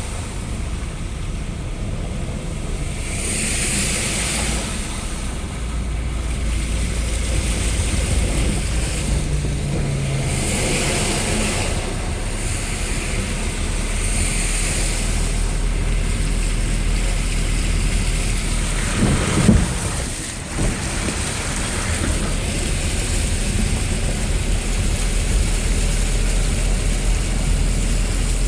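Heavy rain in a storm, a continuous rushing hiss that swells and eases every few seconds, with wind buffeting the microphone as a low rumble. About two-thirds of the way through, a short louder rumble rises over it.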